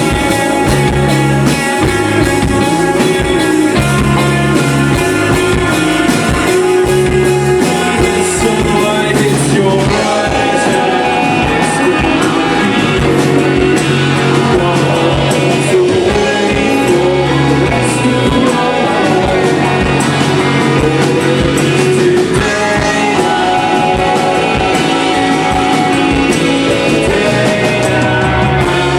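Rock band playing live: electric guitars, bass and drums with sung vocals, loud and continuous.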